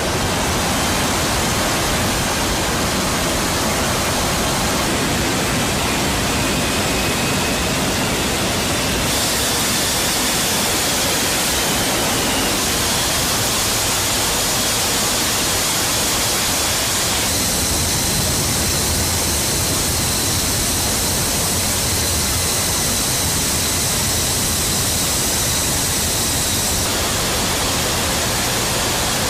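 Loud, steady rushing noise in a C-17's cargo hold in flight: wind through the open paratroop door and the jet engines, with a faint high whine. The noise shifts in character a few times.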